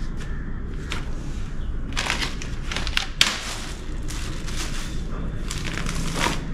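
Plastic bags and snack packets crinkling and rustling as they are handled and packed into a bag, in several short bursts.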